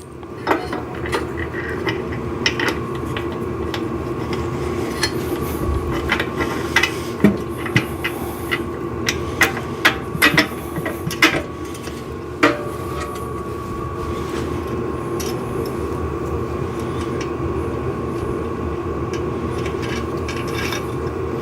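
Metal clinks, knocks and clicks of a steel exercise-machine frame being worked on: a bent bracket flange pried out with a crowbar and a wheel and bolt fitted by hand. The knocks come thickly over the first half and thin out later, over a steady background hum.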